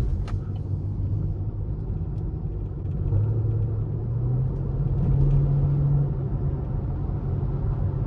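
Chevrolet Camaro SS's 6.2-litre V8 running under way, its low exhaust note climbing gradually in pitch from about three seconds in and easing back near six seconds as the car picks up speed and then lifts off.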